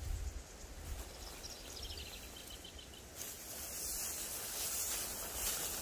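Outdoor field ambience: wind rumbling on the microphone, a faint run of high chirping about a second and a half in, and a rustling hiss of tall grass that grows louder after about three seconds.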